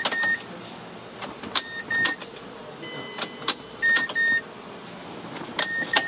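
Repeated sharp clicks, several followed by short high electronic beeps, as the ignition key is worked in a 2010 Mazda CX-7 that does not crank; the engine never turns over.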